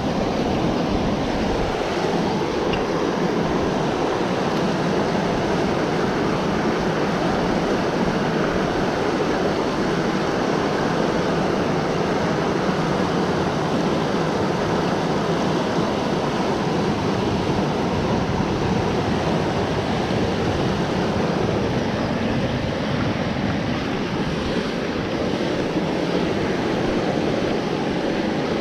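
Fast, torrential river rushing over rocks and rapids: a steady, loud rush of water.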